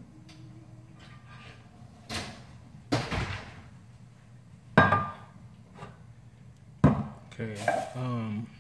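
A metal soup pot handled on a granite countertop: four sharp clanks and knocks, the loudest one ringing briefly, then a wavering scrape near the end as the pot slides across the counter.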